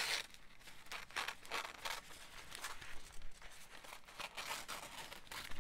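Thin Tim Holtz tissue wrap paper crinkling and rustling in irregular bursts as it is handled and folded over a paper tag.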